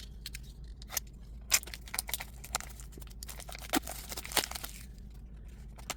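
Hands opening Disney Doorables toy packaging: scattered small clicks, taps and crinkles, a few of them sharper about a second and a half in and again near four seconds.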